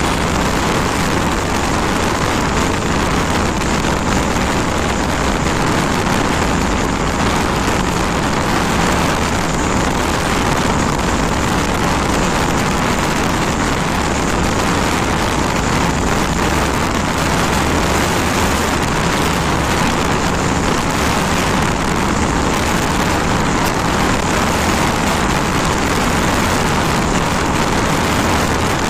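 Loud, steady wind rush on the microphone of a TVS Raider 125 motorcycle riding near its top speed, about 108 km/h, with cloth flags on the handlebar flapping and the single-cylinder engine running at high revs underneath.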